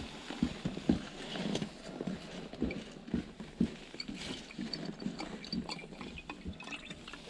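Scattered light clicks and knocks from a plastic antifreeze jug being handled and tipped over a snowmobile's coolant reservoir. Over the last few seconds, coolant begins to pour into the reservoir.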